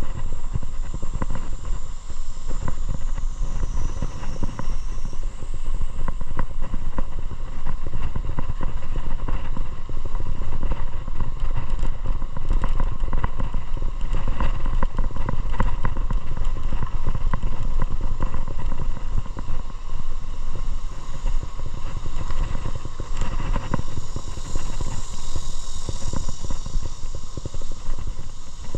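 Motorcycle running steadily under way: a constant engine rumble blended with a dense road and wind noise haze, with no let-up.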